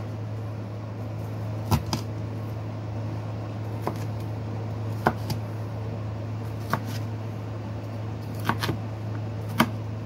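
Kitchen knife chopping red onion on a wooden cutting board: irregular sharp knocks of the blade striking the board, some in quick pairs, over a steady low hum.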